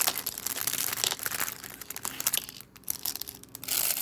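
Crinkling plastic packaging and small Lego pieces being handled, with scattered light clicks.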